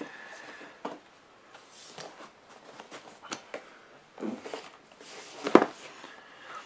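Cardboard laptop box being handled and turned over in the hands: fingers rubbing and sliding on the cardboard in short rustles, with a sharper knock near the end.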